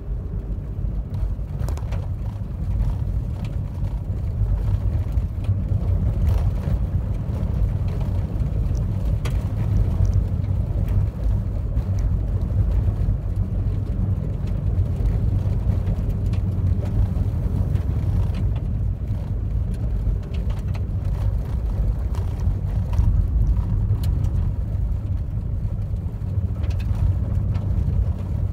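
A car driving on a rough, narrow forest road, heard from a dashcam inside the car: a steady low rumble of tyres and engine, with scattered small clicks and knocks from the uneven surface. The rumble grows a little louder about two seconds in.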